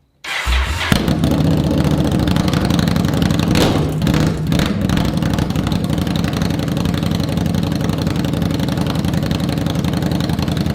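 2016 Indian Scout's V-twin started on straight pipes with the stock mufflers removed: a brief crank, then it catches about a second in and idles loud and steady with a rapid, even exhaust pulse.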